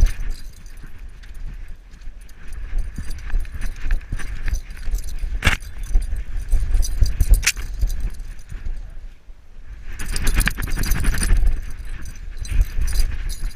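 Metal tags and harness rings jangling on a trotting beagle's collar, over a low rumbling from its movement, with two sharp knocks about five and a half and seven and a half seconds in.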